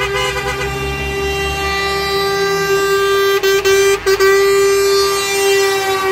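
Truck air horn blowing one long, steady blast, cut briefly a few times about three to four seconds in. Under it, the low rumble of a passing diesel tractor unit fades out over the first couple of seconds.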